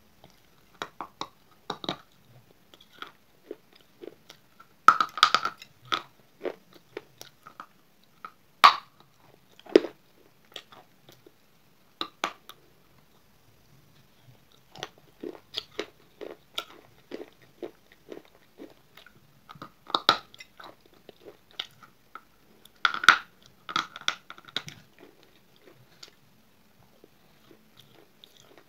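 Close-up biting and chewing of a hard, dry grey chunk of slate-like clay: sharp, crisp crunches at irregular intervals, in clusters with short quiet gaps between.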